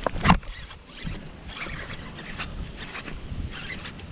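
Baitcasting reel cranked in short bursts, a raspy whirr every second or so, as a topwater frog is worked back across the surface. A sharp knock comes just after the start.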